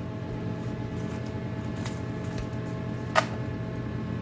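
Electric popcorn machine running with a steady motor hum, and a single sharp click about three seconds in.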